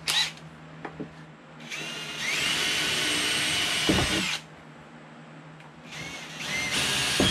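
Cordless drill with a 3/16 inch bit boring rivet holes: the motor spins up to a steady high whine for about two seconds, stops, and spins up again near the end for a second, shorter run.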